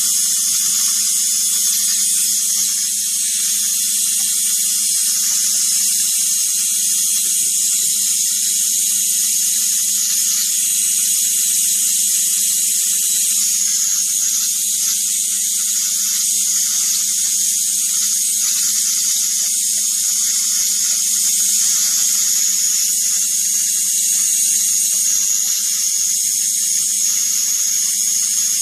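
Continuous high-voltage arc drawn onto a CRT's terminal: a loud, steady hiss over a low buzz, with no breaks.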